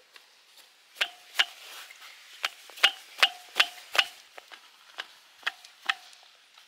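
Knife chopping: about a dozen sharp, unevenly spaced strikes, the hardest ones between about one and four seconds in.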